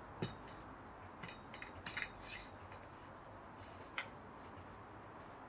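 A few sharp clicks and short metallic rattles from a washing line prop being handled, its tubes and clamp knocking and sliding; the busiest rattling comes about two seconds in.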